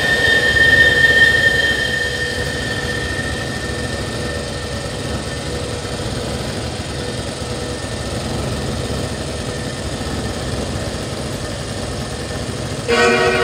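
Live electronic noise music from a laptop and hardware setup: a dense low rumbling drone with sustained high tones that fade away over the first few seconds. Near the end a new cluster of sustained pitched tones cuts in abruptly.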